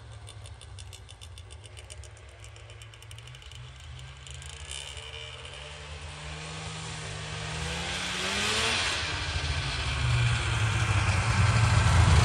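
Snowmobile engines running at a distance. One revs up about eight seconds in and grows steadily louder as it approaches and passes close.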